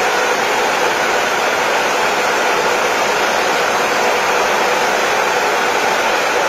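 Row of Antminer ASIC crypto-mining units running, their cooling fans making a loud, steady rushing whir with a faint whine in it.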